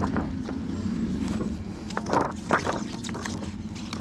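A steady low mechanical hum, with two short knocks a little after two seconds in.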